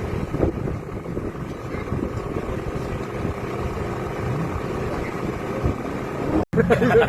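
Drift car engine running steadily, with a short rise in pitch around the middle as it revs. The sound cuts off abruptly near the end.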